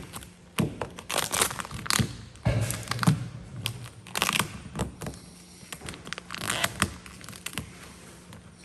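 Gloss black vinyl wrap film being handled and worked over a car door handle: irregular crinkling, crackling and snapping of the film, with a few dull thunks, over a steady low hum.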